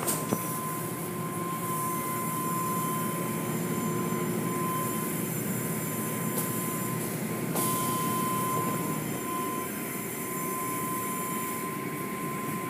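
Automatic car wash running: cloth wash strips and brushes slapping over the car while water and foam spray down, a steady wash of noise with a thin, steady high tone.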